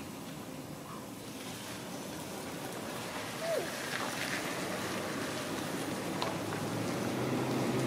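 Steady background rumble and hiss that slowly grows louder, with a low steady hum coming in near the end. One short call, sliding down in pitch, comes about three and a half seconds in.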